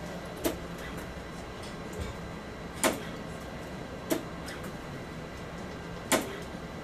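ARTAS robotic follicular-unit-extraction system harvesting grafts: sharp mechanical clicks, four of them one to two seconds apart, over a steady low machine hum.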